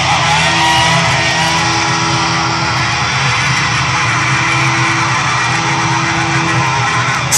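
Live rock band heard through a phone's overloaded microphone: a loud, steady wash of distorted electric guitar with long held notes, mixed with crowd noise.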